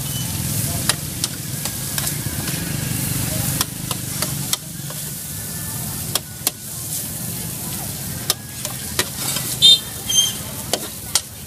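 Metal spatula scraping and tapping across a large steel pan as fried noodles sizzle on it, with frequent sharp clicks of metal on metal. About ten seconds in comes a louder ringing clank of the spatula as the noodles are scraped off.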